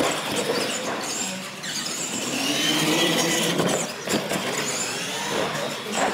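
R/C monster trucks' motors and drivetrains whining, the pitch rising and falling with the throttle. About four seconds in there is a clatter as a truck lands off a ramp jump.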